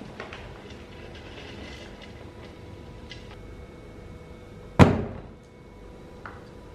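Faint plastic clicks and rustling, then one loud thump about five seconds in as a cat jumps off a hooded plastic litter box.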